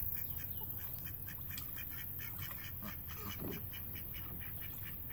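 Flock of domestic ducks quacking: a continuous string of short calls, several a second.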